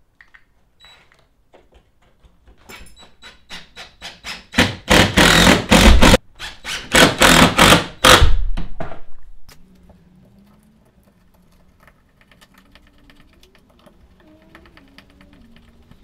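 A screw hook being fixed into a wooden ceiling stud: a quick run of sharp knocks that grows faster and much louder over several seconds, then stops.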